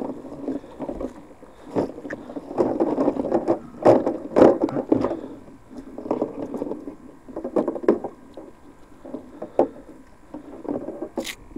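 Cast net full of shad being hauled in and handled in the boat: irregular knocks, clatter and rustling.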